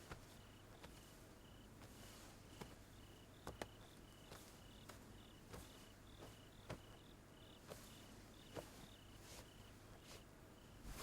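Faint cricket chirping: short, even chirps about twice a second over a near-silent background, with a few faint clicks.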